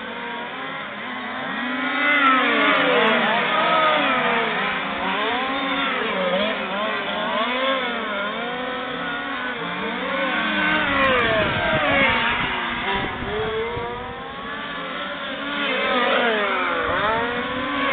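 Small engines of several 1:5-scale RC racing trucks running at once, their pitch rising and falling as they accelerate and brake through the corners. The revving is loudest about two seconds in, again around the middle, and near the end as trucks pass close by.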